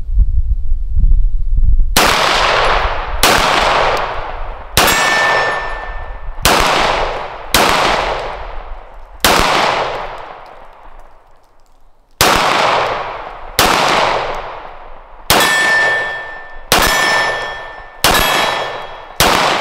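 Springfield Armory SA-35 9mm pistol fired in an unhurried string: six shots about a second and a half apart, a pause of about three seconds, then six more. Each shot ends in a long fading echo, and a clear metallic ring hangs on after several of them.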